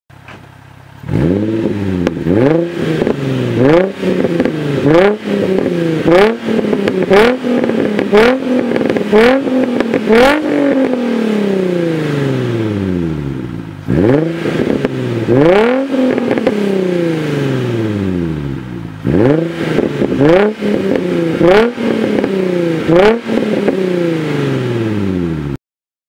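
Nissan 350Z's 3.5-litre VQ35DE V6 exhaust with the stock catalytic converters, revved repeatedly from idle. It starts with quick throttle blips about once a second, then a few longer revs that fall slowly back to idle, and ends with another run of quick blips before cutting off suddenly.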